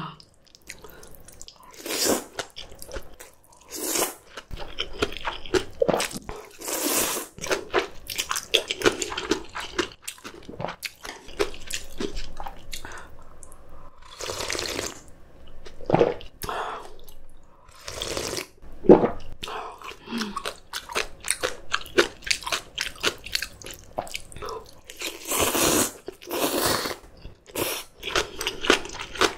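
Close-miked eating of noodle soup with kimchi: wet, crunchy chewing of crisp cabbage kimchi, broken by several short slurps of noodles.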